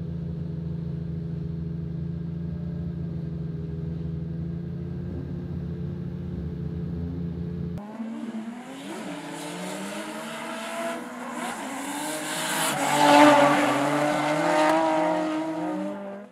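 A drift car's engine idling steadily. About eight seconds in it gives way to a drift car sliding on track, its engine revving up and down with tyres screeching, loudest around thirteen seconds in, and cutting off sharply at the end.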